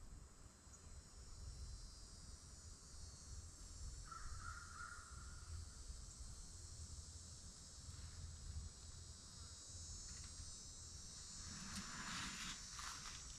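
Steady high-pitched chorus of insects, with a short single call about four seconds in and rustling near the end.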